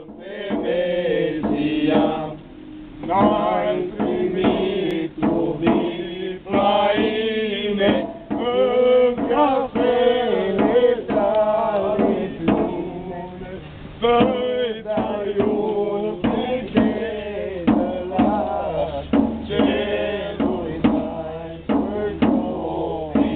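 A group of men chanting a Romanian Christmas carol-greeting (colind) together, with a steel barrel struck with a stick as a drum.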